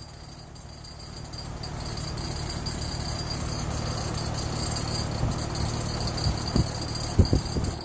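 Heat pump outdoor unit running with a fast, steady metallic rattle that grows louder over the first couple of seconds. A few sharper knocks come through near the end.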